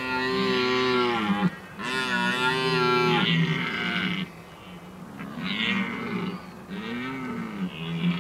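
Red deer stag roaring in the rut. Two long, drawn-out roars come first, then shorter roars in a row, each rising and falling in pitch.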